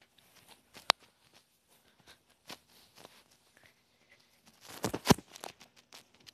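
Nike sneakers stomping on a carpeted floor: scattered dull knocks, a sharp click about a second in, and a cluster of louder knocks about five seconds in.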